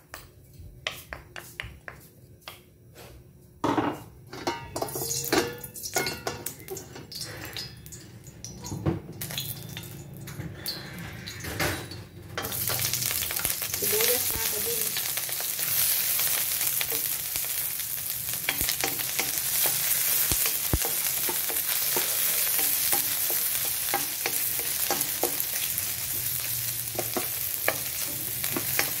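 Scattered clicks and crackles from hot oil and a wooden spatula in a stainless steel wok, then about twelve seconds in sliced onions go into the hot oil and a loud, steady sizzle starts and keeps going as they are stirred and sautéed.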